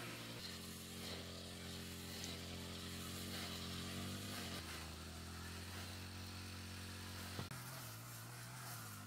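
Small motorcycle engine running at a steady speed, its pitch shifting in sudden steps a few times.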